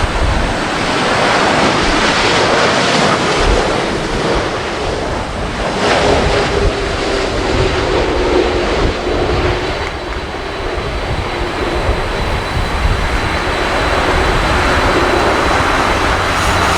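Strong gusty wind buffeting the microphone, with a jet airliner's engines running underneath it on approach; a faint steady whine comes in about halfway.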